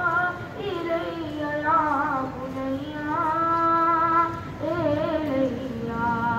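A man's solo voice chanting a marsiya, a mourning elegy, in long melodic held notes that waver and glide in pitch, with short breaks between phrases.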